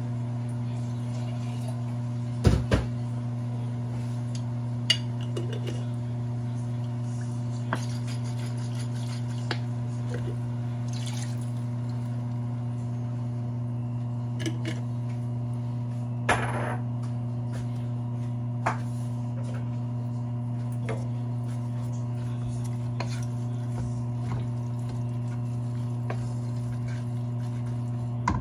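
Pots, pans and utensils clinking now and then over a steady low hum, a handful of separate knocks, with a double clink about two and a half seconds in.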